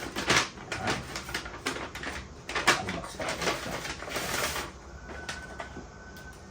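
Thin plastic bag crinkling and rustling in quick irregular crackles as a bun is handled and taken out, dying down after about four and a half seconds. A faint thin steady tone follows briefly near the end.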